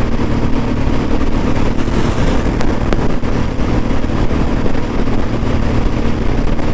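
Royal Enfield Bullet 350's single-cylinder engine running steadily under way, heard from the rider's seat with wind rushing over the microphone.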